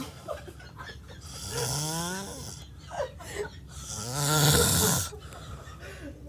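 A drunk man snoring heavily: two long snores about two and a half seconds apart, each rising in pitch.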